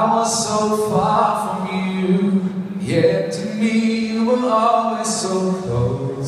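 A man singing into a microphone, his voice amplified through the hall's sound system, in long held phrases with short breaths between them.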